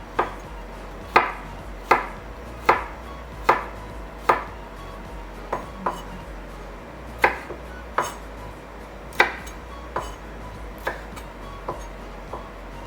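Garlic being chopped with a knife on a cutting board: slow, separate knocks about one a second, with a short pause about halfway through.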